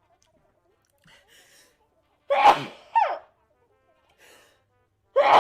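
A person sneezing in quick succession: faint in-breaths, then a loud sneeze with a short voiced tail about two seconds in, and another sneeze starting near the end.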